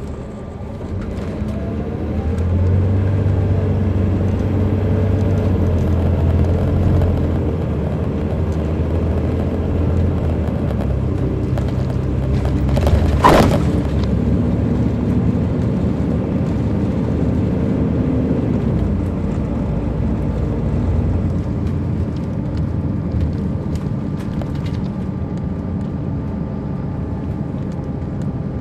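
Caterpillar C13 diesel engine of an MCI D4500CL coach, heard from on board. It picks up and pulls hard from about two seconds in, then keeps running steadily. A single sharp bang comes about halfway through.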